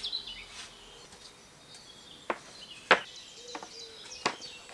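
Birds chirping, with four short sharp knocks, the loudest about three seconds in.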